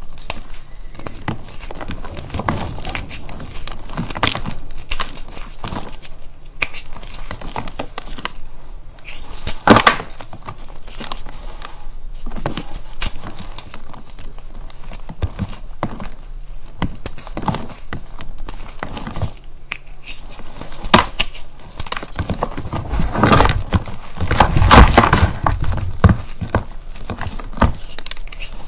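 Purple reformed gym chalk being crumbled and crushed by hand: dry crunching and crackling as pieces break off and chunks drop onto a pile of powder. There are louder crunches about ten seconds in and again near the end.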